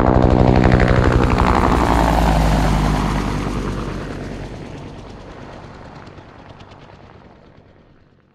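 Helicopter rotor chopping as it passes, its pitch falling and the sound fading steadily away.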